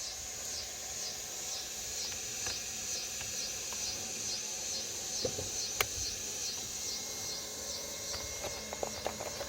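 Insects calling, a steady high-pitched chorus pulsing a few times a second, with one sharp click about six seconds in.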